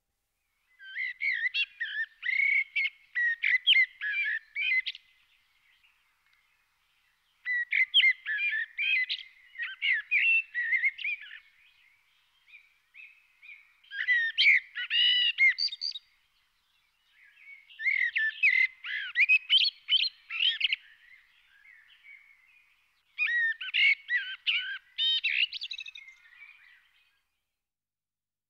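A songbird singing in five warbling phrases of about three to four seconds each, with short pauses between them.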